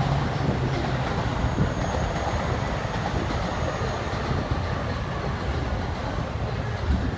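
JR commuter electric train moving along a station platform, a steady rolling rumble with a faint high whine for a couple of seconds.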